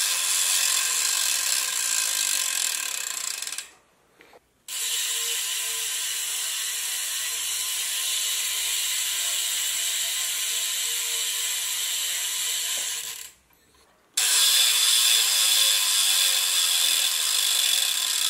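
BMX cassette hub freewheeling as it is spun by hand: its pawls click fast and steadily against the ratchet ring inside the hub. It runs in three stretches with short breaks about 4 and 13 seconds in. The last stretch, after the hub has been reworked to be noisier, is louder than the middle one.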